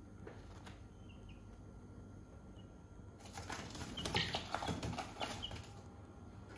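Young chicken flapping its wings in a rapid flurry as it flutters up. The flapping starts about three seconds in, is loudest around four seconds in, and dies away after about two and a half seconds.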